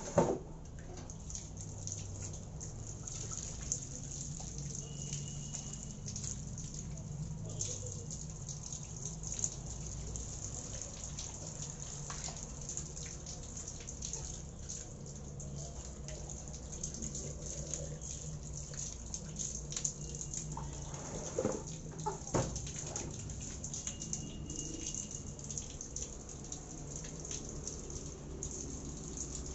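Water running from an outdoor tap and splashing as a bunch of green vegetable stalks is rinsed by hand under it, with scattered drips and small splashes and a sharp knock right at the start.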